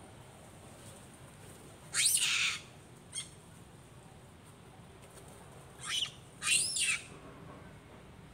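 Shrill monkey screams that rise and fall in pitch: one about two seconds in followed by a short squeak, then two more a few seconds later.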